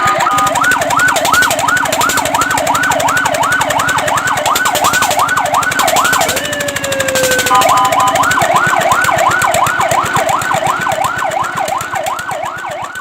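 Fire truck siren in a fast yelp, its pitch rising and falling about three times a second. It breaks off for about a second just past the middle, where a short falling tone sounds, then resumes and begins to fade near the end.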